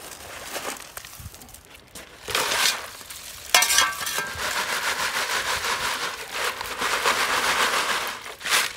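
A shovelful of creek gravel tipped with a crunch onto a half-inch classifier screen set on a water-filled bucket about three and a half seconds in, then the gravel rinsed by hand in the water through the screen: a steady gritty washing and rattling of wet stones for about four seconds.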